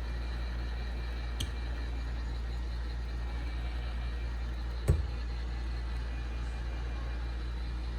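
Heat gun blowing steadily on a smartphone's back cover to soften the adhesive, with a light click about a second and a half in and a sharper knock about five seconds in.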